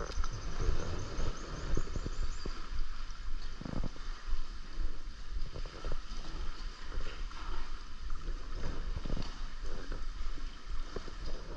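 Muffled water sloshing and rumbling with scattered clicks and knocks, heard through an action camera held just under the sea surface.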